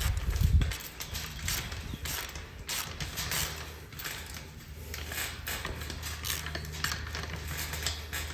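Ratchet wrench clicking in quick runs while tightening a nut on the gate's hinge hardware, with a low steady hum underneath and a dull bump near the start.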